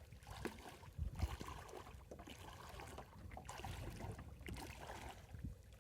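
Faint splashing and lapping of shallow water, with irregular small splashes over a low rumble of wind on the microphone.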